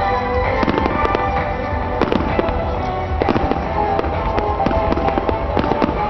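A large fireworks display: rapid, overlapping cracks and bangs of shells bursting and crackling without a break, with music playing underneath.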